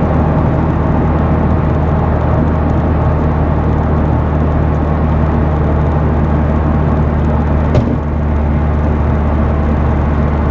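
Heard from inside the cabin, a big-turbo stage 3 Mitsubishi Lancer Evolution X cruises at a steady speed. Its engine drones evenly under tyre and road noise, with a single click about eight seconds in.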